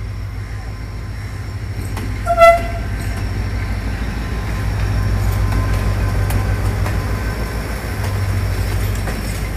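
Pakistan Railways HGMU-30R diesel-electric locomotive passing slowly up close, its diesel engine running with a steady low rumble that grows a little louder as it draws level. One short horn toot sounds about two and a half seconds in.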